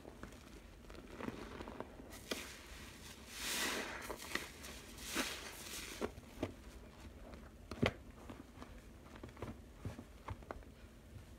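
A black sponge squeezed by hand in soapy rinse water, giving irregular wet squelches and sloshes. A longer watery rush comes about three and a half seconds in.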